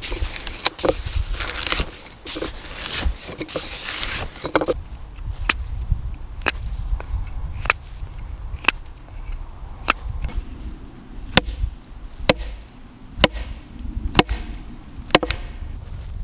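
Scraping and rustling for the first few seconds, then a wooden dowel being knocked into a drilled hole with about ten sharp blows, roughly one a second.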